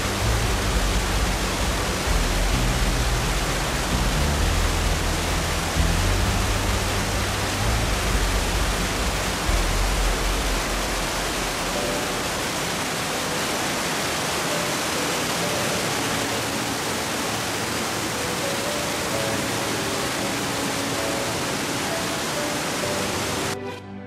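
Waterfall plunging onto rocks: a loud, steady rushing of falling water, with a deeper rumble in the first half. Soft music fades in faintly over the last several seconds.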